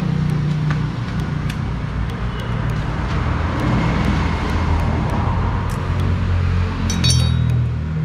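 Scattered metal clicks and clinks as a scooter's disc brake caliper is handled and worked on with a spanner, with a cluster of ringing clinks about seven seconds in. A steady low hum runs underneath.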